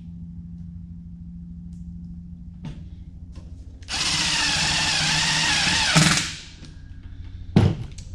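Cordless drill driving a screw into the sheet-metal heater box for about two seconds, its motor pitch wavering under load, stopping with a knock. A sharp clack follows about a second and a half later.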